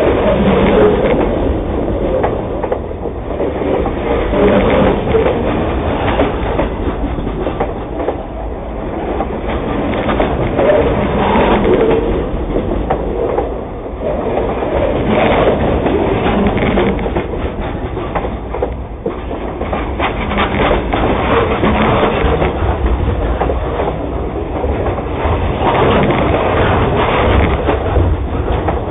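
Freight train rolling across a steel railroad bridge, heard from beneath the deck: a loud, continuous rumble with a rapid clatter of wheels on rail joints.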